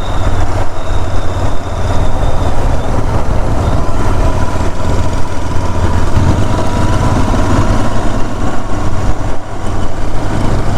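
Royal Enfield 650 parallel-twin motorcycle running steadily at road speed, its low engine note under heavy wind rush on the rider's helmet microphone.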